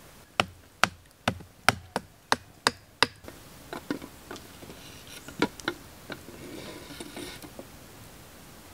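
A tool striking wood, eight quick even blows about two and a half a second, then scattered lighter knocks: wood being chopped or split by hand.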